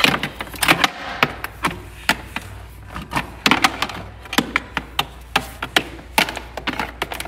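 Irregular clicks and knocks of braided airbrush hoses and their metal quick-disconnect fittings being handled and rattled against the hard plastic tool case.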